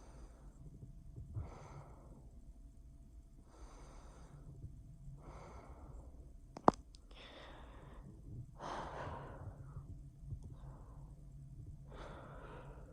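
Close-miked human breathing: a slow series of soft, airy breaths, one every second or two. A single sharp click comes about halfway through. A humidifier hums steadily underneath.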